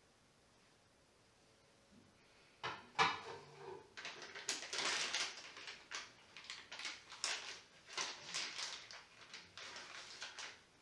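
A metal primus stove set down in a ceramic sink with a knock a little under three seconds in, followed by a run of rough scrubbing strokes, about one or two a second.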